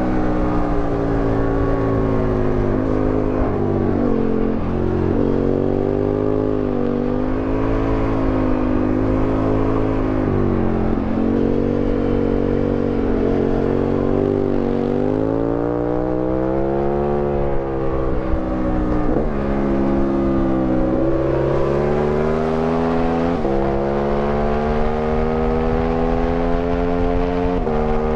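Aprilia Tuono 1000R's 60-degree V-twin engine heard from on board at speed, its pitch climbing under acceleration and falling back again and again, with several sharp drops as it shifts gear. Wind rushes over the microphone throughout.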